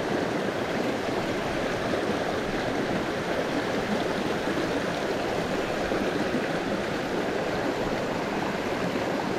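Small rocky creek running over stones in a shallow riffle: a steady rushing of water.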